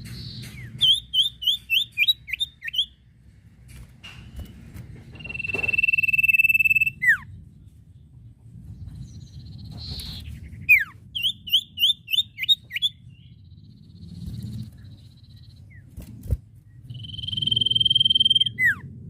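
Common iora (sirtu, cipoh) singing: a quick run of about six rising chirps, then a long steady high whistle that ends in a short falling note. The phrase comes twice, over a low hum.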